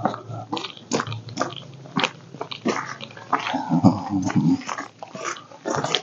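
Footsteps crunching on gravel and patchy snow, irregular and crisp, with a brief voice-like pitched sound about four seconds in.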